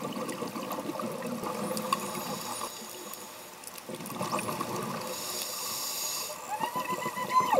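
Scuba regulator bubbles gurgling underwater. Near the end a bottlenose dolphin whistles once: a pitch that rises, holds for about a second, then drops sharply.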